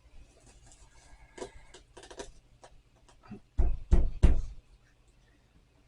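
A knife cutting through a tough corn cob on a cutting board: light clicks and scrapes, then three or four heavy thuds a little under four seconds in as the blade is forced through the cob.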